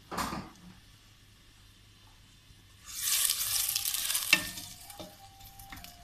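Sliced onions sizzling in hot oil in a stainless steel pot as they are stirred with a wooden spoon: a loud spell of sizzling about three seconds in, with a sharp knock near its end, then softer crackles. A short thump right at the start.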